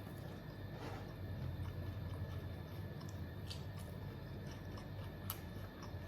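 A person chewing a mouthful of ayam geprek (smashed fried chicken) and rice, with scattered faint mouth clicks and one sharper click about five seconds in, over a steady low hum.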